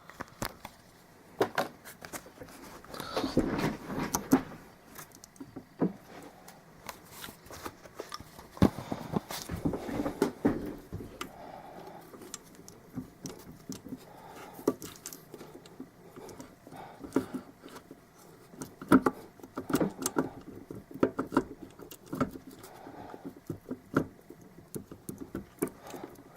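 Scattered clicks, light metal taps and scrapes of hand tools and parts being handled on a Corvair differential, with a couple of longer scraping stretches.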